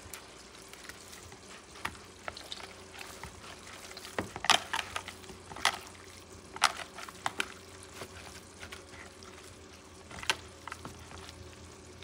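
Hands squeezing and mashing water-soaked bread in a plastic bowl, making irregular wet squelches and splashes with a few sharper clicks in the middle stretch. A low steady hum runs underneath.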